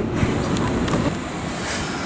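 Kintetsu electric commuter train pulling in along a station platform: a steady low rumble of its running, with a few faint clicks.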